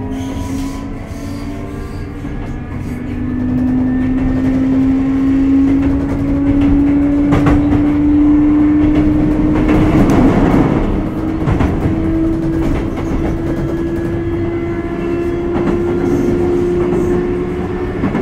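Sotetsu 8000 series electric train heard on board under way: its traction motor whine rises slowly in pitch as the train gathers speed, over a rumble of wheels with clacks at the rail joints. There is a louder burst of rushing noise about ten seconds in.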